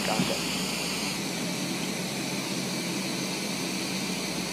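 Steady in-flight aircraft noise heard inside the aircraft: an even hiss of engines and airflow over a low hum, shifting slightly in tone about a second in.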